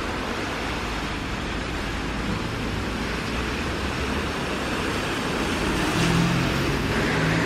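Steady rain and the swish of car tyres on a wet road, with the low rumble of traffic. A car's engine hum grows louder about six seconds in as it comes close.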